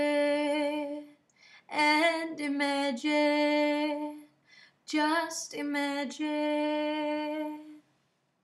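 A woman singing unaccompanied: three phrases, each ending on a long held note, stopping near the end.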